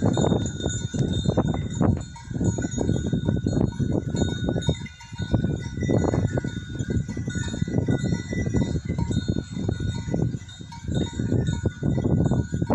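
A grazing flock of sheep and goats, their bells clinking and ringing faintly, under a heavy, uneven low rumbling noise.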